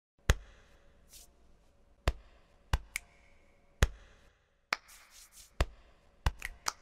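A series of sharp single clicks, about a second or two apart at first and then coming in a quick cluster near the end, with a few short hissing bursts between them.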